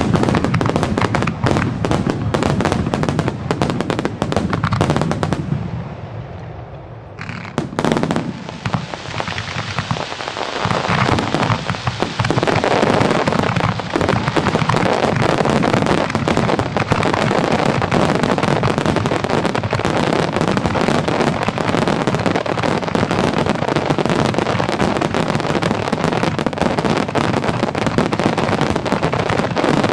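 Aerial fireworks bursting in a dense barrage, a near-continuous crackle of sharp reports. It eases off briefly around six to eight seconds in, then builds back to a dense crackle.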